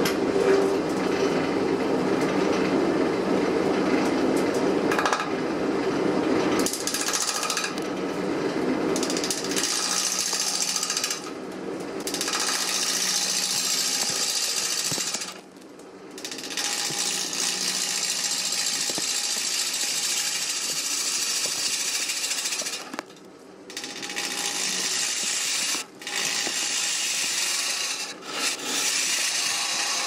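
A gouge cutting into a spinning oak blank on a wood lathe, making a continuous rough hiss. The cut breaks off briefly several times when the tool comes away from the wood.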